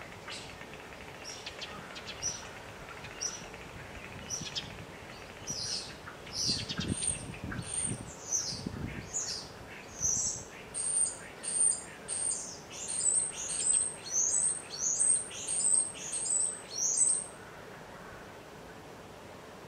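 A small songbird calling over and over in short, high chirps that each drop in pitch. The chirps grow louder and quicker, coming about two a second before they stop about 17 seconds in.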